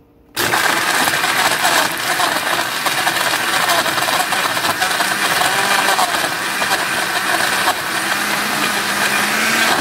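Hamilton Beach smoothie blender's 650-watt motor switching on abruptly a fraction of a second in and running steadily on its icy-drink setting. Its stainless steel blades churn frozen fruit, ice and apple juice in the plastic jar.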